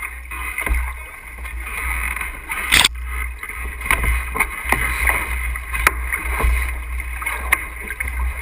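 Sailboat under way: wind rumbling on the bow-mounted camera's microphone over the wash of water along the hull, with sharp knocks and clicks from crew moving gear on the foredeck, the loudest about three seconds in.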